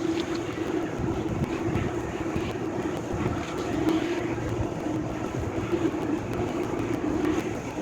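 Demolition machinery running steadily, with scattered knocks and crunching of debris.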